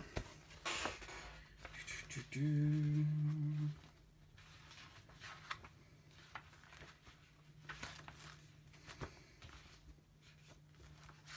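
A man hums a short, steady "hmm" for about a second and a half, rising slightly as it begins. Faint paper rustles and clicks from leafing through an instruction manual sound around it, over a faint steady electrical hum.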